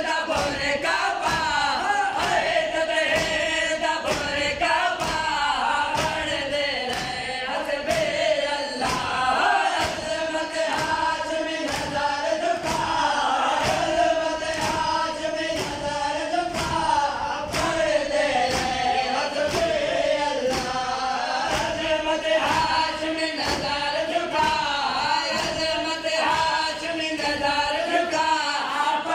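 Men's voices chanting a noha in chorus, kept in time by the steady, even slaps of many mourners beating their chests (matam).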